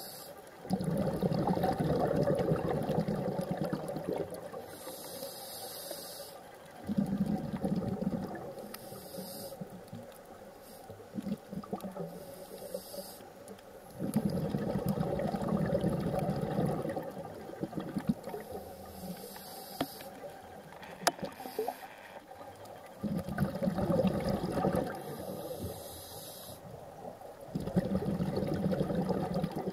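Scuba regulator breathing underwater. Each inhale is a short hiss, and each exhale is a two-to-three-second burst of bubbling, five breaths in all.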